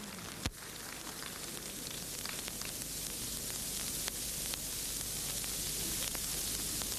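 Steady hiss of an old broadcast recording, with a few faint clicks.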